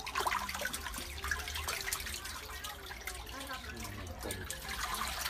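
Shallow muddy water splashing and sloshing as a hand gropes among a mass of fish crowded in a small concrete pit, with many quick irregular splashes.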